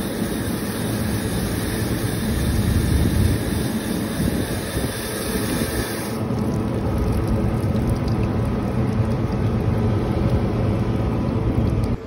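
Garden hose spray nozzle spraying water onto an air-conditioner condenser coil to rinse out the dirt before cleaner is applied, a steady hiss and splash over a low rumble. About halfway through the hiss turns duller.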